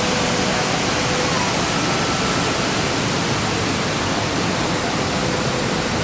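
Niagara Falls heard from close by at its base: a loud, steady rush of falling water.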